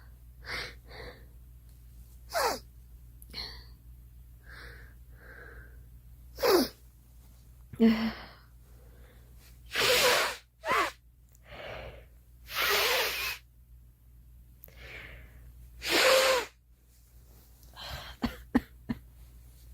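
A girl sneezing again and again, about five loud sneezes spread a few seconds apart, with quieter breathy sounds between them.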